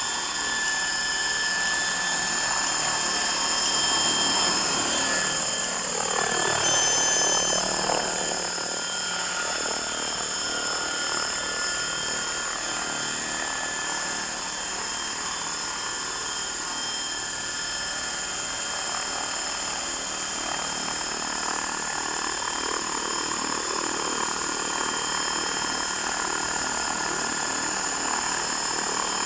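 Frenzy 600E electric RC helicopter on a 5S battery hovering: the steady whine of its electric motor, heard as several steady high tones, over the whir of the rotor blades. A brief falling sweep in pitch comes about six seconds in.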